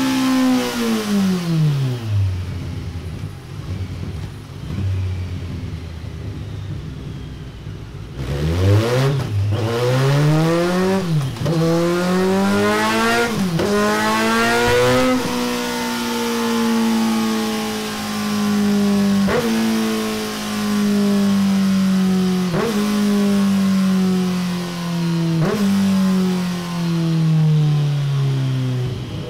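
Kawasaki Z900's inline-four engine through a Delkevic 13-inch tri-oval stainless steel end can and de-cat exhaust. Revs fall to a steady idle, then about 8 seconds in the engine accelerates hard with four sharp drops in pitch at the gear changes. A long, slowly falling run-down follows, broken by a few short clicks, and the revs pick up again at the very end.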